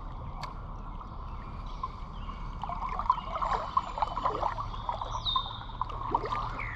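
Creek water trickling and babbling over rocks, a busy bubbling patter that gets livelier about midway through.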